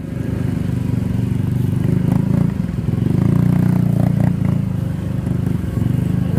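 Scooter engine running steadily at low speed on a rutted, muddy dirt road, a low even hum heard from the rider's own bike.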